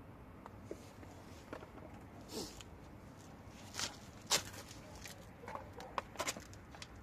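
Scattered clicks, knocks and short scrapes of hand tools and metal brake parts being handled, with a louder clack about four seconds in.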